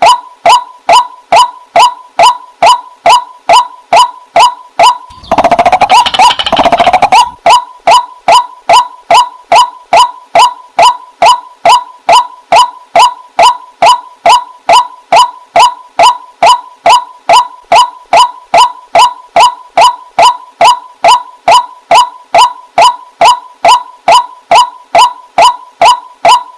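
Waterhen call: short notes repeated in a fast, even series, about two or three a second, broken by a louder, rougher stretch of about two seconds some five seconds in.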